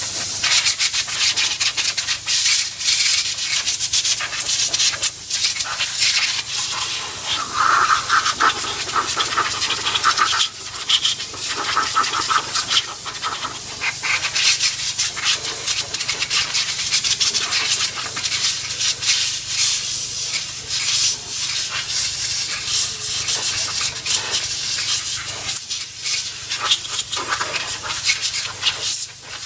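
Compressed-air blow gun hissing loudly as it blasts old brake dust off a car's front brake caliper and disc. It starts abruptly, and the rough hiss swells and dips unevenly as the nozzle is moved around.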